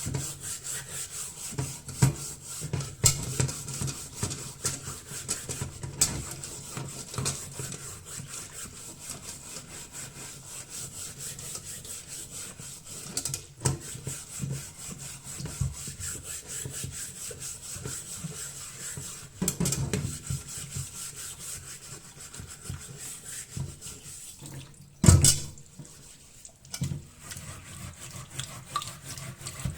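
Fast, repeated scrubbing strokes at a kitchen sink, with a single loud knock about 25 seconds in.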